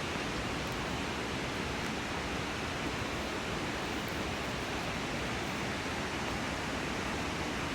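Victoria Falls' falling water: a steady, unbroken rush of noise.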